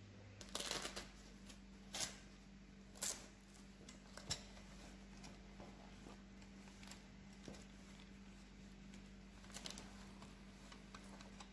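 Faint rustles and clicks of a plastic-sleeved knife roll and its steel tools being handled, a few short sounds spaced a second or so apart, over a steady low hum.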